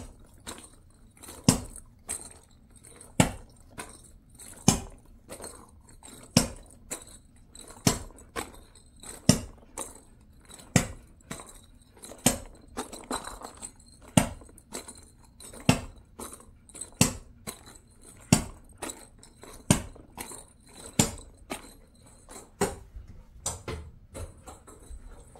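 Jindo dog chewing something hard: a loud crunch about every second and a half, with smaller crunches between.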